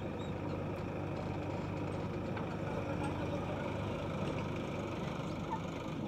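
JCB 3DX backhoe loader's diesel engine running steadily under hydraulic load as the backhoe digs and swings a loaded bucket of mud.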